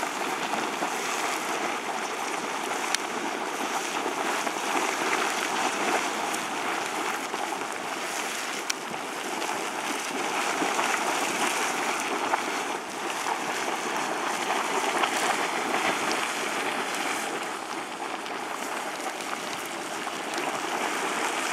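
Spasmodic Geyser erupting: hot water splashing and churning steadily out of its vents.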